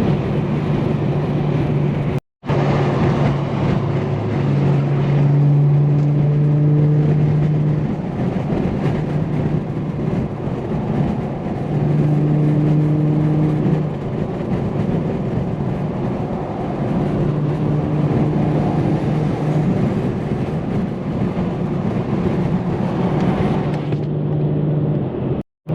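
Car engine and road noise from inside a moving manual sedan: a steady engine drone at cruising speed whose pitch holds or shifts only slightly. The sound drops out completely for a moment about two seconds in and again near the end.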